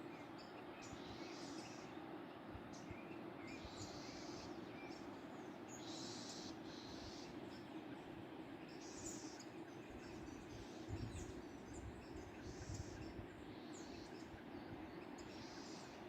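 Steady rush of a waterfall, with small birds giving short high calls every second or two. A couple of brief low rumbles come about two-thirds of the way through.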